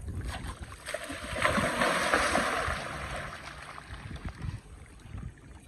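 A large alligator gar thrashing and splashing in the shallows at the bank while it is pulled in. The splashing swells about a second in and eases off after about three seconds.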